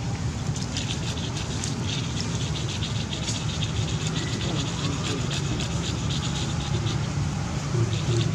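Outdoor background: a steady low rumble with fast, high-pitched chirping clicks running through it.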